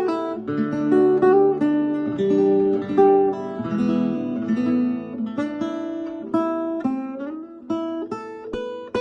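A 1961 Framus Camping 5/3 parlor acoustic guitar played in a folk-blues style: a run of single plucked notes and chords, with a few notes sliding up in pitch about seven seconds in, and a chord left ringing at the end.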